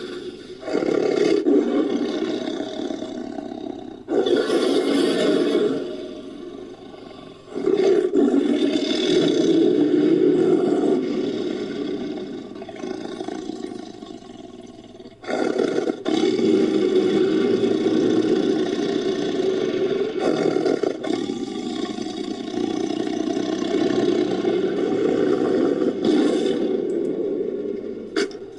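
Designed monster roars for a fictional great white shark, mixed from tiger roars and megalodon sound effects. Four long, deep roars, each starting suddenly and fading away; the last two are drawn out over many seconds.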